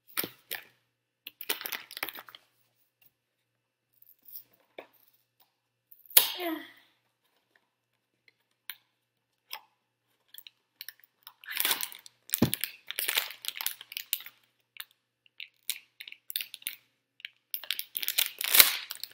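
Foil blind-bag wrapper and cardboard box being handled, crinkled and torn open, in scattered bursts of rustling with quiet gaps; the longest stretches come about midway and near the end.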